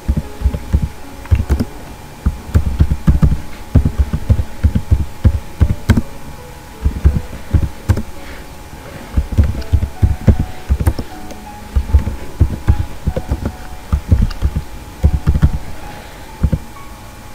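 Typing on a computer keyboard: irregular runs of keystrokes, heard as dull low thuds, broken by short pauses, over faint background music.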